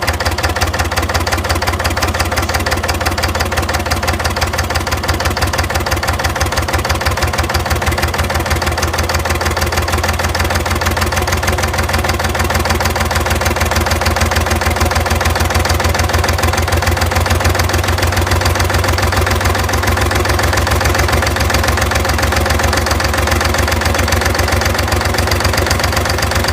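Diesel generator engine running at low speed with an even knock, like hammering inside the engine, which the owner takes as a sign that something is wrong with it.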